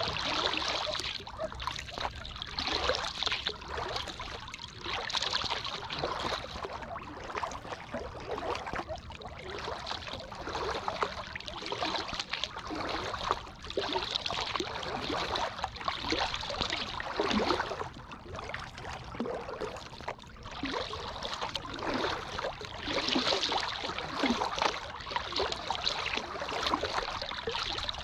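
Water splashing and trickling around a paddled sea kayak, rising and falling every couple of seconds with the paddle strokes.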